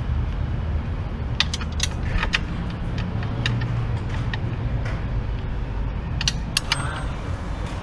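Scattered sharp metal clinks of a spanner, bolts and a steel bash plate being fitted under a Suzuki DR650 motorcycle, in two clusters, over a steady low rumble.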